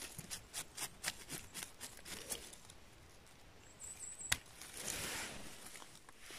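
A small brush whisking dirt off a freshly picked chanterelle mushroom in short strokes, about four a second. Then a brief high scrape and one sharp click as a knife trims the stem base, followed by a soft rustle of leaves.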